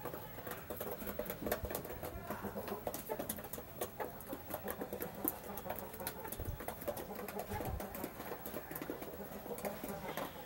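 Young chickens pecking feed from a metal dish: a quick, irregular patter of beak clicks, with soft clucking now and then.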